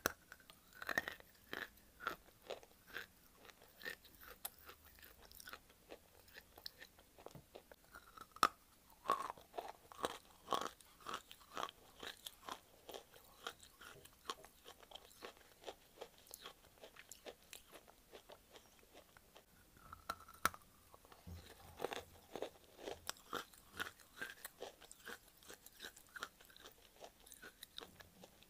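Dry white clay being bitten and chewed: a run of sharp, irregular crunches, several a second.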